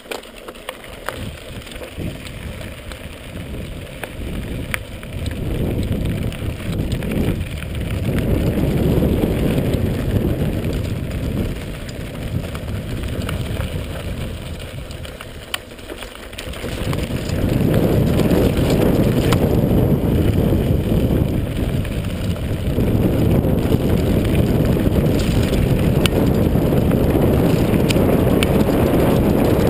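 Wind rushing over the microphone, mixed with a mountain bike's tyres rolling over a rocky gravel track, with scattered clicks and rattles from the bike. It builds as speed picks up, eases off for a few seconds about halfway through, then holds loud.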